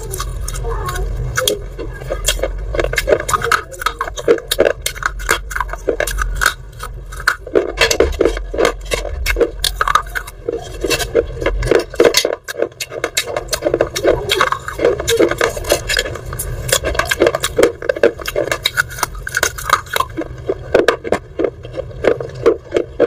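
Pieces of fired terracotta clay pot being bitten and chewed close to the microphone: dense, rapid, irregular crunching and crackling, with a low hum under the first half that stops about halfway through.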